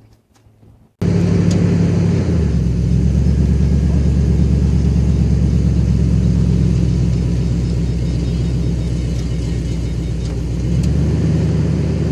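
Pickup truck engine running at low speed as the truck backs up to the camper's hitch. It comes in abruptly about a second in, and its note shifts slightly soon after and again near the end.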